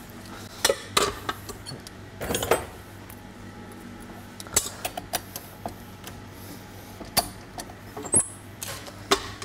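Scattered clicks and knocks of a stainless-steel mixing bowl being set and fitted onto a stand mixer, with a brief high metallic ping near the end, over a steady low background hum.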